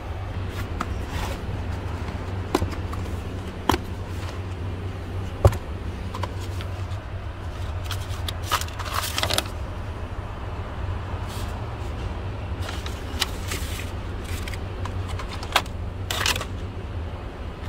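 Hand tools and small parts being handled during car repair work: scattered sharp clicks and a few short rustling, scraping bursts over a steady low hum.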